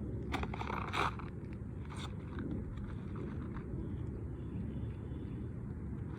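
Asphalt roof shingles scraping and crunching as they are handled and worked into place, a few short bursts in the first two seconds, over a steady low rumble.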